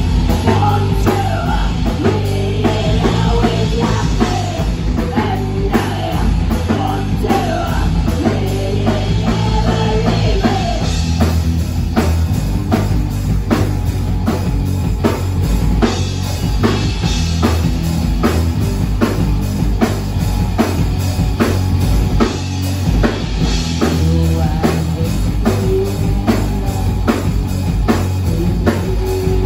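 Rock band playing live: a drum kit keeping a steady beat under guitars, with a singing voice over the first third and again near the end.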